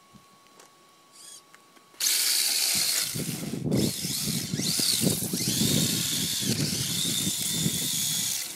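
Small electric motor of a Seben HR2 RC drift car with a Nissan GT-R body, whining and rising and falling in pitch with the throttle as the car drifts, along with a rough hiss from its tyres on asphalt. It is quiet for about two seconds, then starts suddenly.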